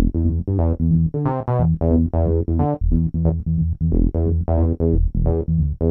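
Yamaha QY70 sequencer and tone module playing an electronic synth pattern: short pitched notes, about four a second, over a steady low bass line.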